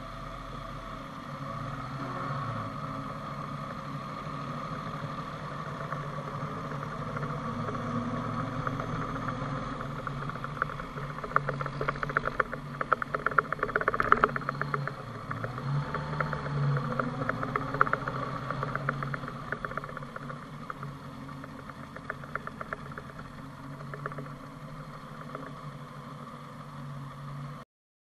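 A 1983 Honda GL1100 Gold Wing flat-four engine runs steadily, heard from a handlebar-mounted camera on the sidecar rig. From about a third of the way in, a dense spell of rattling clicks comes on the gravel road surface, then eases off. The sound cuts off just before the end.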